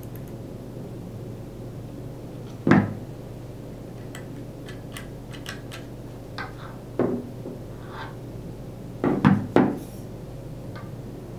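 Knocks and light clicks of an air-powered sealant caulking gun being handled and set against a wooden tabletop. There is one loud knock about three seconds in, another about seven seconds in, and three close together near the end, over a steady low hum.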